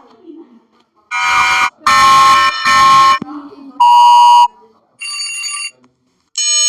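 Electronic alarm-clock app tones: a run of about six short, loud pitched beeps and buzzes, each roughly half a second long with gaps between them, changing in tone from one to the next.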